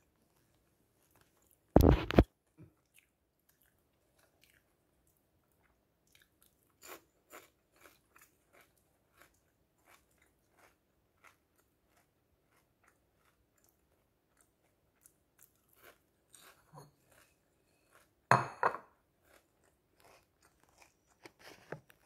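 Close-up crunching and chewing of a crispy seaweed snack with pumpkin seeds, a scatter of short crisp crackles. Two loud, brief knocks or rustles stand out, about two seconds in and again near the end.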